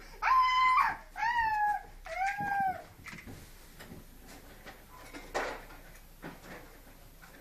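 A toddler's three high-pitched, drawn-out vocal calls in quick succession, the later two falling in pitch at the end, followed by light scattered clicks of plastic building blocks being handled.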